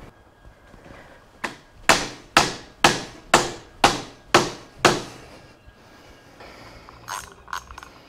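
Hammer tapping on the motorcycle's handlebar: about eight sharp, evenly spaced strikes, roughly two a second, each ringing briefly. A few light clicks follow near the end.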